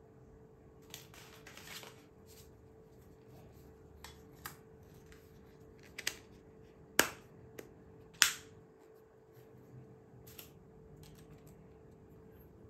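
Scattered clicks and taps from handling a foldable phone and its packaging, with a short rustle about a second in and two sharp, louder snaps about seven and eight seconds in, over a faint steady hum.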